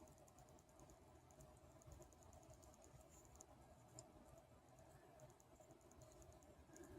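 Near silence: faint room tone with light, rapid ticking, about five or six ticks a second.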